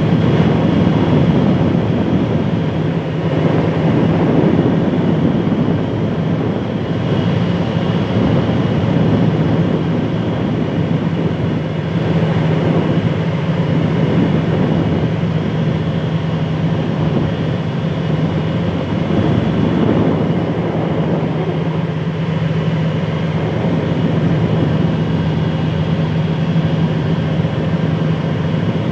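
Boat engine running steadily: a constant low hum under a rushing noise.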